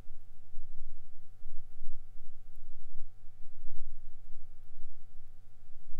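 Steady electrical hum of several tones over a low, uneven rumble, on the audio feed of a wireless portable camera.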